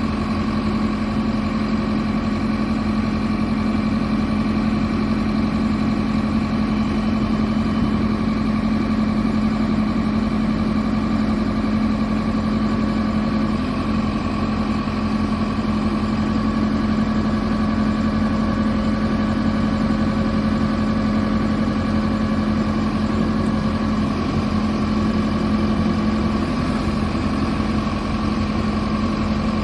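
JCB 3CX backhoe loader's diesel engine idling, a steady unchanging note.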